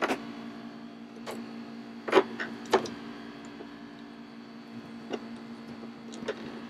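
Heavy battery cables and their terminal lugs being handled in a battery compartment: several short, sharp knocks and clicks, the loudest about two seconds in. A steady low electrical hum runs underneath.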